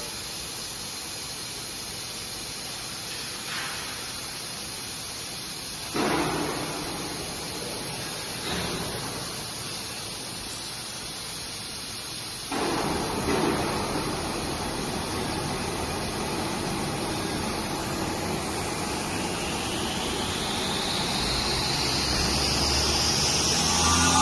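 Woodworking CNC saw machine running with a steady hiss. The level steps up suddenly several times, loudest about 6 and 12 seconds in, and a rising whine builds over the last few seconds.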